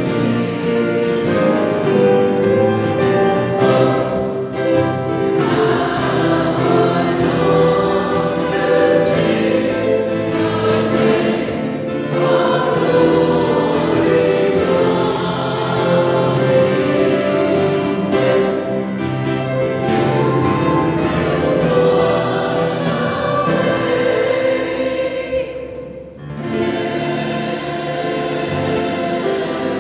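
Choir singing a hymn, held notes moving phrase to phrase, with a short break near the end before the singing picks up again.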